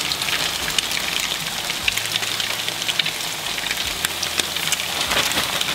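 Breaded crappie fillets deep-frying in hot oil in a copper pan, a steady dense crackle and sizzle. The oil is a little bit too hot.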